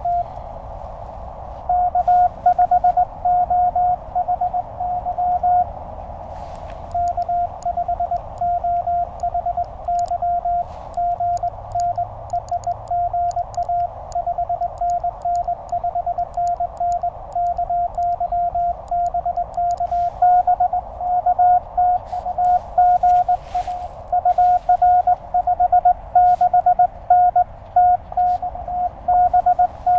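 Morse code (CW) keyed as a steady mid-pitched tone from a Penntek TR-35 QRP transceiver, dits and dahs with short gaps, over the receiver's narrow band of hiss. There is a steady tone for a few seconds at the start, then a pause, then continuous keying.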